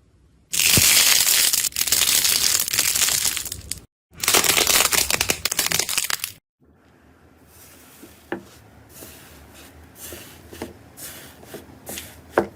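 Slime being squished and pressed: two loud stretches of dense crackling and crunching, each cut off suddenly, then quieter squishing with scattered sharp pops.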